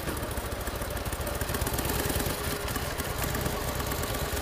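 Custom Harley-Davidson chopper's V-twin engine running at low revs as the bike rolls slowly, a steady uneven rumble.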